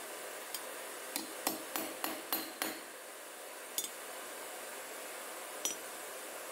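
Claw hammer striking a steel rod laid over a small block while shaping blacksmith tongs. The sharp metallic blows come as a light tap, then a quick run of six at about three a second, then two single blows spaced apart.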